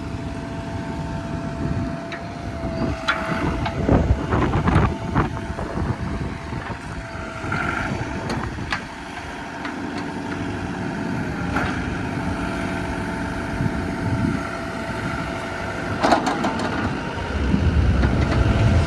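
A JCB 3CX Compact backhoe's diesel engine running, with a steady high whine over it. Several sharp clanks come about 3 to 5 seconds in and again about 16 seconds in, and the engine grows louder near the end.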